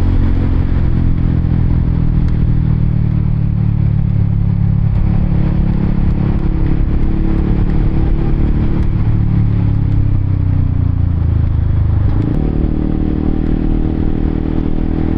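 Honda CBR150R motorcycle engine running under way at a steady pace, with wind and road noise on the microphone. About twelve seconds in, the engine note drops suddenly.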